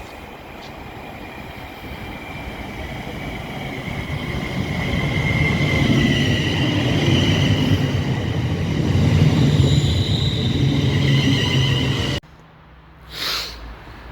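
A train running through the station, its rumble and high wavering whine growing steadily louder. The sound cuts off abruptly about twelve seconds in, followed by a brief swish.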